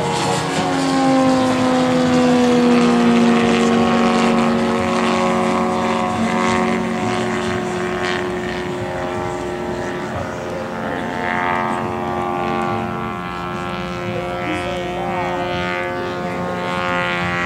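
Engine and propeller of a 60% scale RC aerobatic airplane, a steady drone whose pitch drops over the first few seconds as the plane flies by, then holds steadier as it keeps maneuvering.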